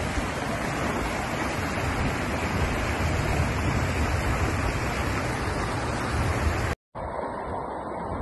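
Muddy flash-flood torrent rushing down a wadi: a steady, even rush of water noise, heavy in the low end. About seven seconds in it cuts out for a split second and resumes thinner and duller.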